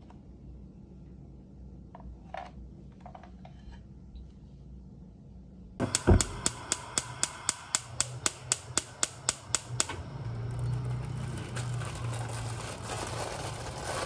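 Gas stove spark igniter clicking rapidly, about five clicks a second, for about four seconds after a first heavier click. The clicking stops as the burner lights, and a steady rushing hiss with a low hum follows.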